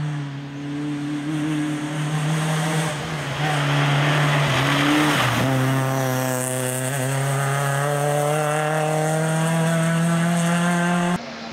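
Suzuki Swift rally car engine running hard on a stage. A few seconds in there is a dip in pitch with a stretch of tyre and road noise, then the engine pulls steadily higher in pitch for about six seconds. Near the end it cuts off abruptly.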